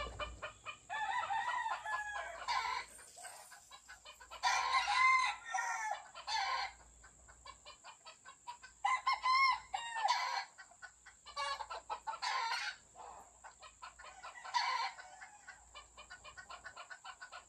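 Several game roosters crowing one after another, about eight crows, each lasting a second or so, with short gaps between.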